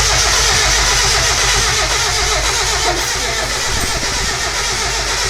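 Mazda Miata's four-cylinder engine cranked over on the starter motor without firing, because its fuel injector relay is pulled. The engine is being spun to build oil pressure and prime the newly fitted turbocharger.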